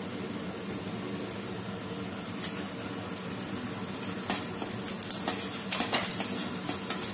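Vadagam and fenugreek seeds sizzling in hot groundnut oil in a stainless-steel kadai as the tempering begins. From about four seconds in, a steel spoon scrapes and clinks against the pan as the seasoning is stirred.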